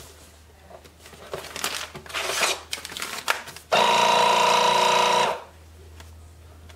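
Plastic vacuum-sealer bag rustling as it is laid across the machine, then the sealer's built-in slide cutter drawn across the bag to cut it from the roll: a loud, steady rasp lasting about a second and a half that starts abruptly about halfway through.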